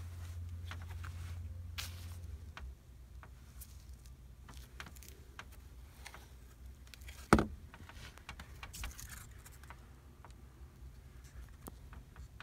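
Faint rustling and small clicks from someone handling and moving through loose pink fiberglass insulation in an attic, with one sharp knock about seven seconds in. A low hum stops suddenly about two and a half seconds in.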